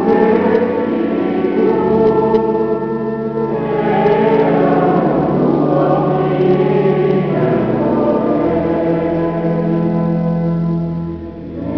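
A choir singing a slow liturgical hymn in a large stone church, over long steady held low notes; the singing dips briefly near the end.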